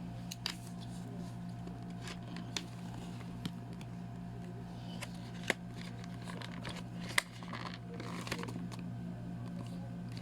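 Toy packaging being handled and opened: scattered sharp clicks and taps, with a packaging rustle near the end, over a steady low hum.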